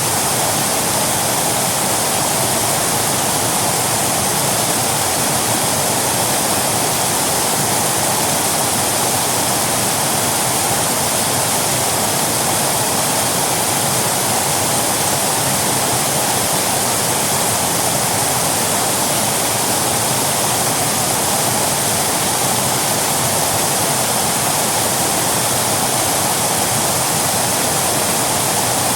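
Waterfall: water falling and splashing in a steady, unbroken rush with no separate splashes standing out.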